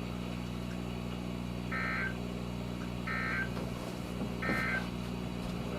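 Three short warbling data bursts of the EAS/SAME end-of-message code (NNNN) from a weather radio broadcast, each about a third of a second long and spaced about a second and a half apart. They signal the end of the flash flood warning message. A steady low electrical hum runs underneath.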